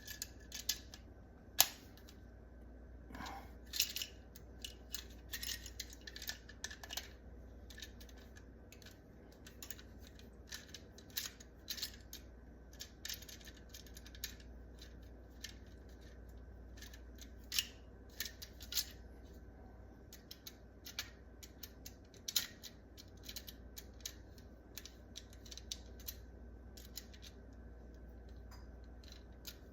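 Irregular small clicks, taps and scrapes of hands working electrical wires into a wall outlet's terminals, a few sharper knocks among them.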